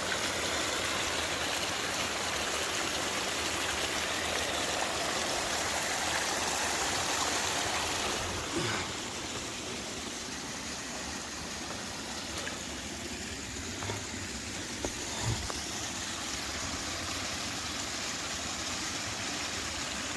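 A small waterfall and mountain stream running high with rainwater, a steady rush of water over rock. It eases a little about eight seconds in, and a few soft knocks come through near the middle.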